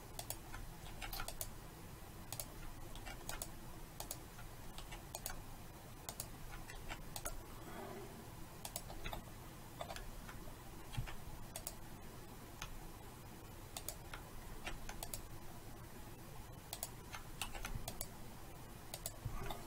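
Irregular clicking of a computer keyboard and mouse, about two clicks a second, as the Ctrl+R loop-cut shortcut is pressed again and again.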